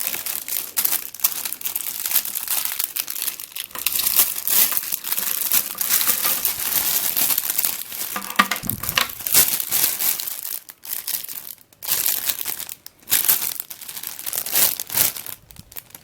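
Packaging being torn open and crinkled by hand, a constant crackling rustle that turns stop-start with short pauses after about ten seconds.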